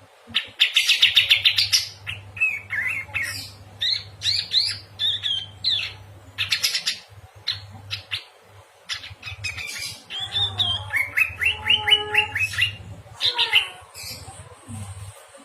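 A domestic canary and a kapas tembak bulbul singing together, in fast rolling trills and varied chirping phrases. The loudest trills come about a second in and again for about two seconds after the ten-second mark. A faint steady low hum runs underneath.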